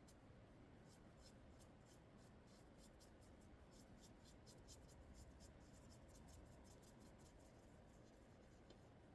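Near silence: a stand mixer turned down very low, a faint hum under quick, irregular scratchy ticks.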